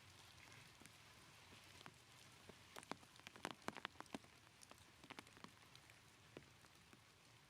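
Near silence with faint hiss, broken by a quick run of faint clicks and taps about three to four seconds in and a few stray ones after.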